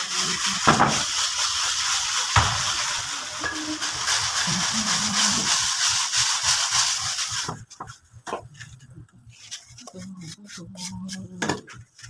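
Plastering tool scraping and smoothing cement render on a wall: a steady rasping hiss that, about two-thirds of the way through, breaks up into short separate strokes with gaps between them.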